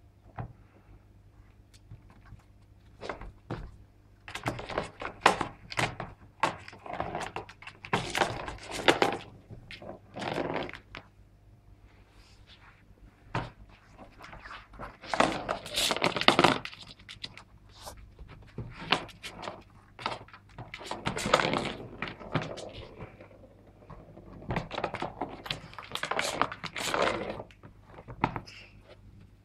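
Bengal cat pawing at a round plastic ball-track toy with a cardboard scratch pad: irregular thunks and clattering knocks of the plastic, coming in short bursts, with the ball rattling around the track.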